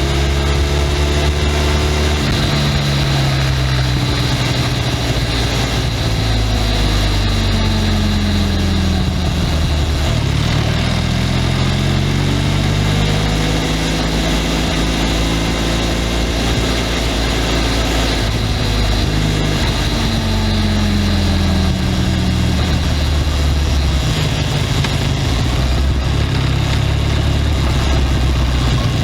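Benelli 502C's parallel-twin engine through its stock exhaust while riding, with a deep bass note. The engine note falls steadily over the first ten seconds as the bike slows, climbs again as it accelerates, then drops once more and settles, with a steady rush of noise underneath.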